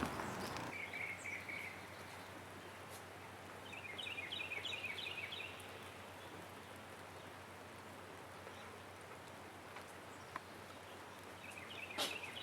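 Small birds chirping in short trills several times over a faint, steady hiss of light rain.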